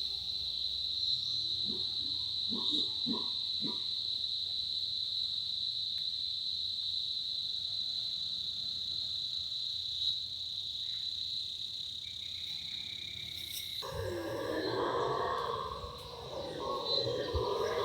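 Steady, high-pitched insect drone over jungle ambience, with a few short animal calls about two to four seconds in. Near the end, howler monkeys break into loud, rough howling that starts abruptly.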